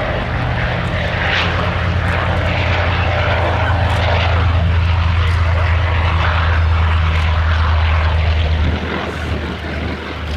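Vought F4U Corsair's big radial engine running at power on a flyby pass. The low, steady engine note swells slightly, then drops away sharply near the end as the aircraft passes.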